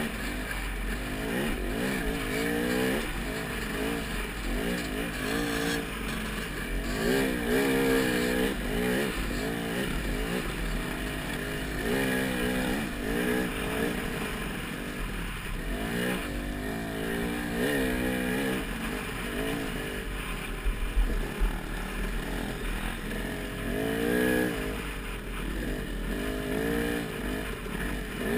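Off-road motorcycle engine revving hard and repeatedly, its pitch climbing and dropping again and again as it is ridden through the gears over rough desert terrain, with a steady low rumble underneath.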